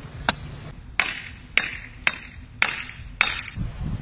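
Chopping into wood: six sharp strikes, about two a second, as the end of a wooden pole is cut to a point against a log.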